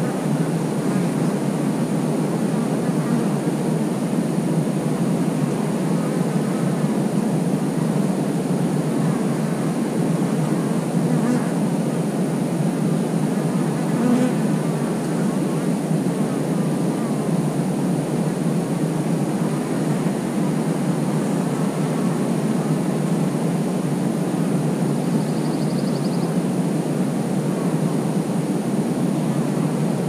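Honeybee colony buzzing at the hive entrance: a steady, dense hum of many wings. Twice near the middle, the buzz of a single bee flying close stands out briefly.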